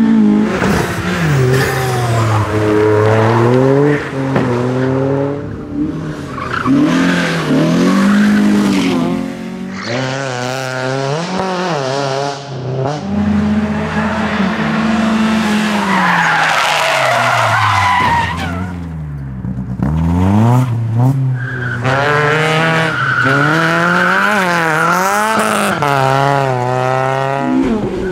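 Cars driven hard on a race circuit: engines revving up and dropping back again and again through gear changes, with tyre squeal about halfway through.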